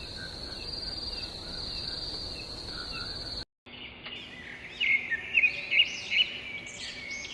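Forest ambience: a steady high insect buzz with faint chirps, which cuts off about halfway and gives way to birds chirping and twittering in a quick series of calls.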